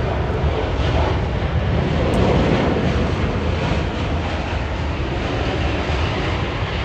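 Jet rumble from a Boeing 777-200ER's Rolls-Royce Trent 892 engines at takeoff thrust as the airliner climbs out overhead. It is loud and steady, swelling a little two to three seconds in.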